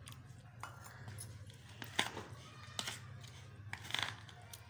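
Spoon stirring semolina and curd batter in a plastic bowl, with a few sharp scrapes and knocks about 2, 3 and 4 seconds in, over a low steady hum.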